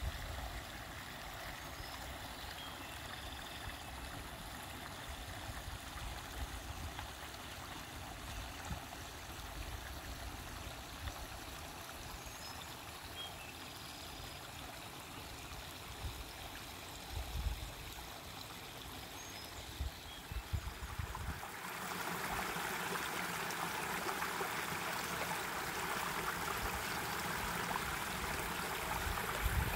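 Muddy creek swollen with runoff from a downpour, gurgling as it runs over rocks. About two-thirds of the way through it becomes louder and brighter as the rushing water over the rocks comes close.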